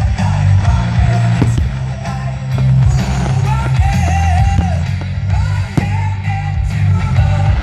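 Music with a singing voice over a heavy bass beat.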